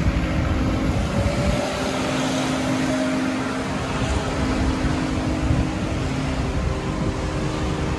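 Steady hum of running machinery, several fixed tones over a rough low rumble.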